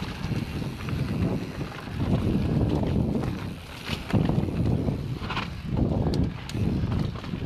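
Mountain bike riding down a rocky dirt singletrack, heard through an action camera: wind buffets the microphone and the tyres rumble over the ground, swelling and easing every second or two. Occasional sharp clicks and knocks come from the bike rattling over rough ground.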